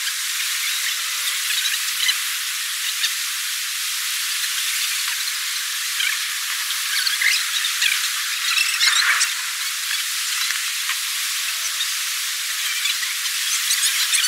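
Heavy rain falling: a steady hiss with scattered clicks of drops.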